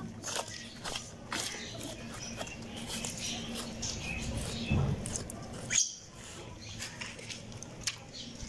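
A knife slicing and scraping as a cow's hide is worked off the carcass: scattered wet clicks and scrapes, with one louder knock about six seconds in.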